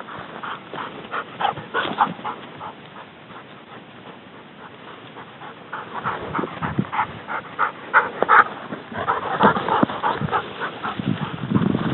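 Hunting dog panting in quick, even breaths, in two spells with a short lull between.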